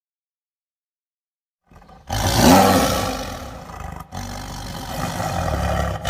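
Silence, then from about two seconds in a loud, rough roar with a low rumble underneath, which dips briefly about four seconds in and then carries on.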